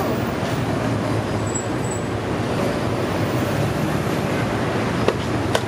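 Steady city street traffic noise, with two short clicks near the end.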